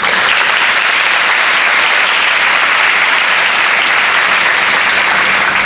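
A large audience of schoolgirls applauding: dense, steady clapping that starts suddenly and dies away near the end.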